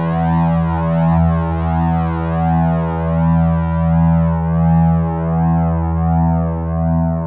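A sustained synthesizer keyboard chord held on, with a sweeping swirl running through its upper notes and a gentle swell and fade a little under twice a second.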